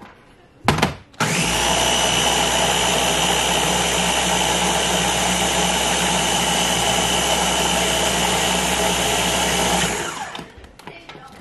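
Small electric food chopper running steadily for about nine seconds, its blade blending frozen berries, yogurt, honey and milk into a thick purée, then winding down near the end. A couple of short knocks come just before it starts.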